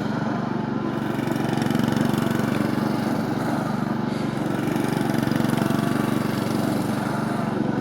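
Petrol walk-behind lawn mower engine running steadily, its blade not engaged.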